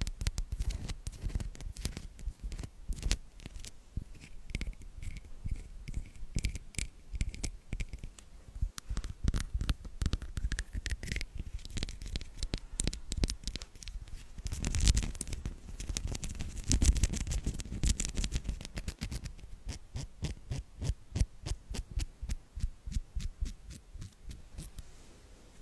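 Close-miked ASMR trigger sounds: a dense, irregular run of small sticky clicks and taps, with a louder scratchy rustle about two-thirds of the way through.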